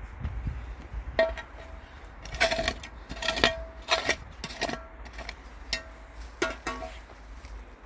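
Small metal hand scoop scraping dirt and clinking against the stone grave kerb: a series of about eight short, ringing metallic scrapes.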